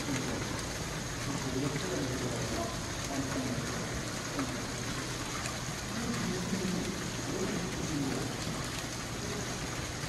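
Water falling and splashing steadily into a koi pond, an even hiss without letup.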